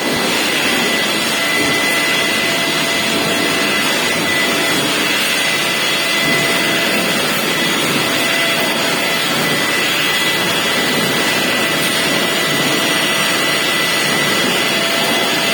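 Welding arc running steadily: a loud, even hissing crackle with a faint high whine held steady underneath.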